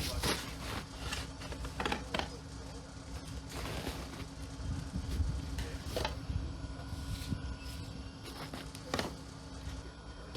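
Irregular knocks and scrapes of a large chunk of ice being broken up with a pickaxe and shoved along, a few strikes spaced a second or more apart, over a low steady hum.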